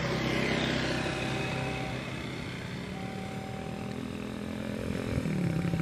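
Railway level-crossing warning signal sounding in long, even beeps of one steady pitch, about one every two seconds, over motorcycle engines and road traffic.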